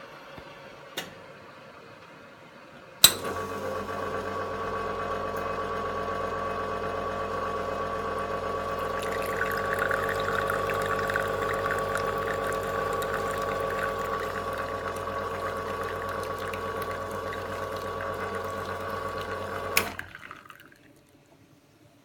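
Iberital L'anna single-group espresso machine's pump switching on with a sharp click and running with a steady buzzing hum while water flows through, a liquid hiss growing about halfway. It switches off with a click about seventeen seconds later, and the sound dies away.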